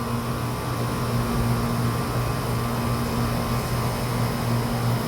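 Goodman central air conditioner condensing unit running just after start-up: its Copeland reciprocating compressor gives a steady hum under the rush of the condenser fan.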